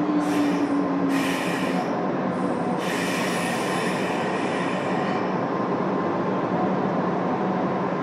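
Running noise inside a JR West 201 series electric train car: a steady rumble with a low whine falling slightly early on, and high-pitched wheel squeal twice in the first five seconds.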